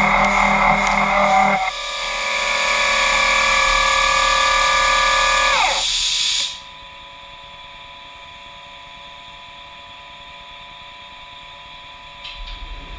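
CNC machining centre milling with a 1-inch five-flute Tungaloy DoFeed high-feed cutter, the cut loud and dense. It stops about a second and a half in, leaving the spindle's steady whine and the hiss of coolant. Around six seconds in the whine falls in pitch as the spindle winds down, and then only a quiet, steady machine hum remains.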